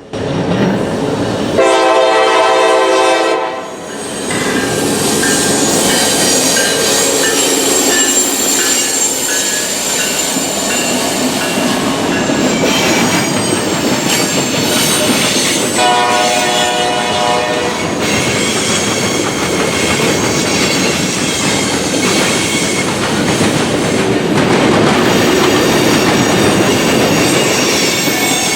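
Diesel freight train passing close, its locomotive horn sounding two chords, one about two seconds in and a second about sixteen seconds in. Steady rumble and clatter of the freight cars runs underneath, with high-pitched wheel squeal.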